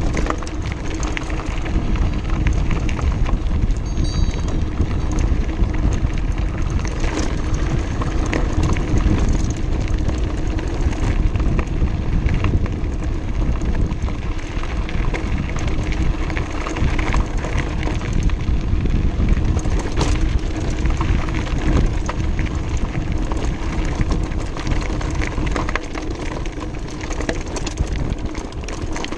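Mountain bike rolling fast down a loose gravel track: tyres crunching over stones and the bike rattling, with wind rushing over the microphone.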